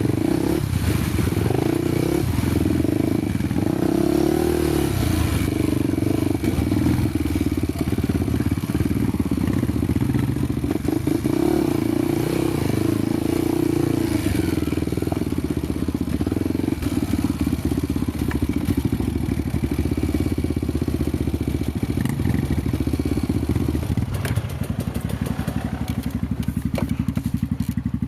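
Honda motorcycle engine running off-road under load, its note rising and falling with the throttle. About 24 seconds in it drops to a lower, steady idle, with a few clicks and knocks.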